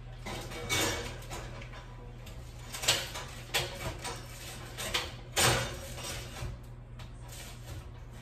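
Metal baking pan and oven rack clattering and scraping as a loaf is worked into an open oven, about six short knocks over several seconds, over a steady low hum.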